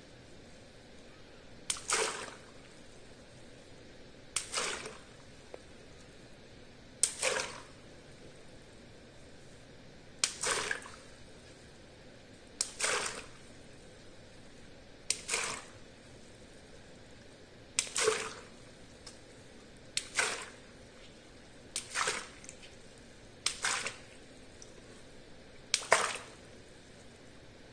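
Small water balloons popped one at a time with a pin, about eleven pops spaced every two to three seconds. Each is a sharp pop followed by a brief splash of water spilling out.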